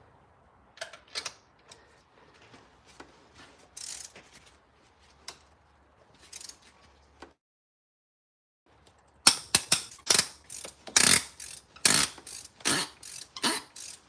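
A socket ratchet being worked back and forth, its pawl clicking loudly and rapidly in repeated strokes, after scattered lighter clicks and taps of tools being handled. This fits removing a tight spark plug.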